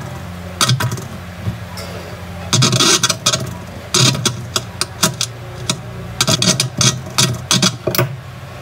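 A coin rattling on the vibrating cone of a small loudspeaker driver that is playing a steady low hum. The coin clatters sharply in bursts.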